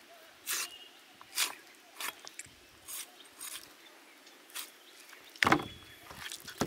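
Cleaver cutting raw chicken breast on a wooden cutting board: a series of short, separate cuts and knocks of the blade against the board, the loudest about five and a half seconds in.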